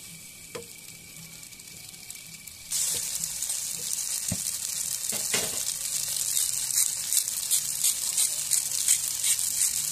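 Spaghetti and sliced sausages frying in a pan while being stirred with a wooden spatula. A faint sizzle turns suddenly into a loud crackling sizzle about three seconds in.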